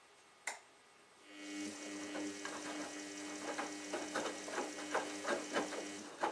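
Samsung Ecobubble WF1804WPU washing machine turning its drum in a wash tumble. A click, then the motor's steady hum comes in about a second later, with wet laundry swishing and thudding about three times a second. The hum dies away near the end, followed by another click.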